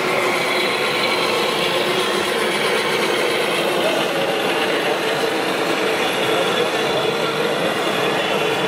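Small electric motors and gearboxes of radio-controlled model construction vehicles running with a steady whine.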